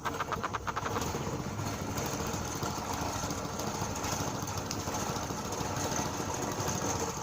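A small engine running steadily. A quick train of ticks comes in the first second.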